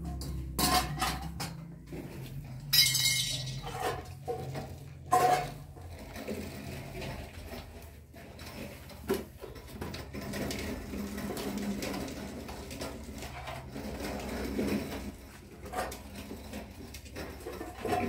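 Clinks and knocks of kitchenware being handled on a concrete floor: a large plastic water jug, a metal tea kettle and cups. The sharpest knocks come in the first few seconds, followed by softer, steadier handling noise.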